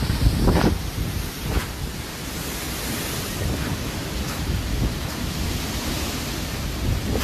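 Strong cyclone wind rushing steadily and gusting hard against the phone's microphone, with the heaviest buffeting in the first second.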